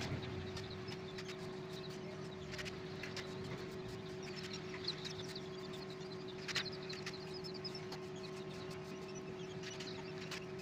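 Newly hatched quail chicks peeping, many faint short high chirps, over a steady electrical hum. A few soft knocks come as the chicks are handled, at about 2.5, 5 and 6.5 seconds.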